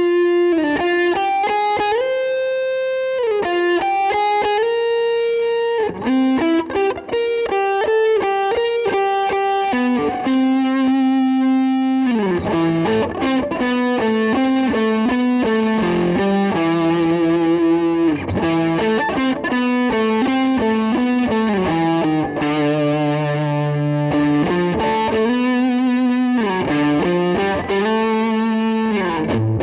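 Gibson Les Paul Custom replica electric guitar played through distortion: a melodic lead line of long sustained notes, some gliding into pitch and some held with vibrato.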